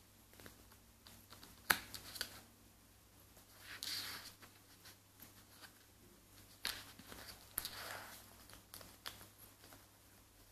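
Paper rustling and flicking as a paperback book's cover and pages are handled and pawed at, with scattered light taps, a sharp click about two seconds in and two longer rustles later on.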